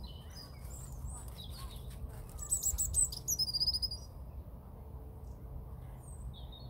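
Birds chirping with short, high calls, a quick run of loud chirps in the middle, over a steady low rumble.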